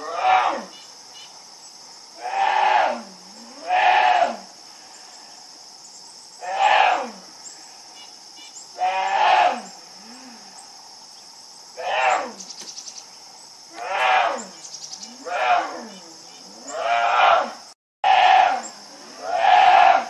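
Young American black bear bellowing over and over, about a dozen loud calls each under a second, one every one to three seconds. It is calling for its mother, as the watchers assume. A steady insect buzz runs underneath.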